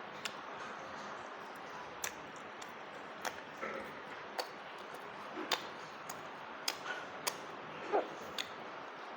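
Close-up eating sounds: irregular wet clicks and lip smacks of chewing, over a steady background hiss.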